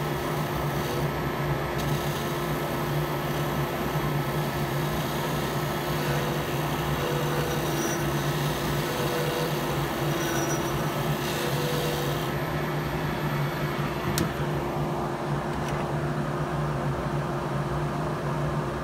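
A PSI Turncrafter Commander wood lathe running steadily while a parting tool cuts a tenon into the end of a spinning eucalyptus handle blank, the hiss of the cut rising and easing over the motor's hum.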